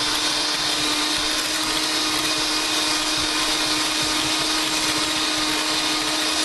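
Electric mixer running steadily at constant speed, its beaters whipping softened cream cheese to lighten it.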